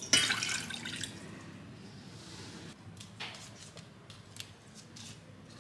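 Water poured from a steel measuring cup into a stainless steel saucepan, splashing for about the first second. From about three seconds in come a series of short snips of kitchen scissors cutting dried kelp over the pan.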